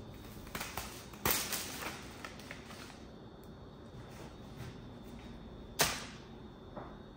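Several sharp clicks or knocks: a loud one about a second in and another near the end, with fainter ticks between the first two.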